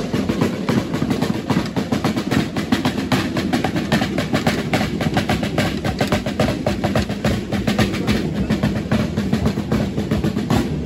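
Traditional Gigantona street drumming: slung drums struck with sticks in a fast, steady, rolling beat of rapid strokes that never pauses.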